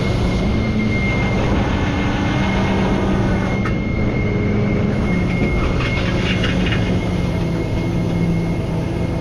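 Rollback tow truck's engine and hydraulics running as the bed is slid out: a steady drone whose pitch steps slightly up and down, with a thin steady high whine over it.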